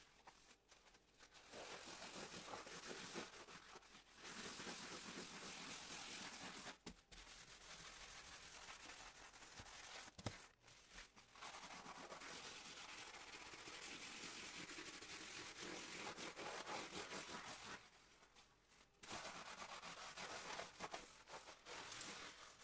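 Kitchen sponge scrubbing soapy stainless steel and tiles: long stretches of steady rubbing, broken by short pauses. There is one sharp click about ten seconds in.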